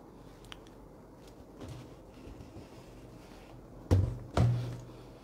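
Two dull thumps about half a second apart, the second followed by a brief low hum that fades, after several seconds of quiet room tone.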